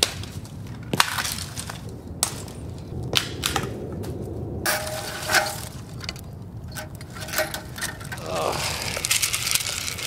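Dry sticks and dead branches snapping and cracking as brush is dragged and broken by hand, with a few sharp cracks in the first half. About five seconds in a match is struck and flares with a hiss, and dry leaves crunch and rustle near the end.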